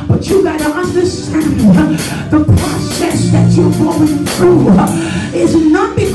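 Live gospel praise music: a woman singing into a handheld microphone over drums, loud and amplified.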